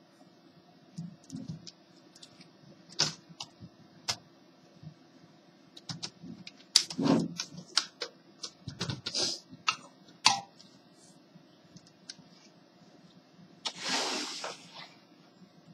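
An HP 6530b laptop being handled on a desk: scattered plastic clicks and knocks, with two short scraping rustles, one about seven seconds in and one near the end.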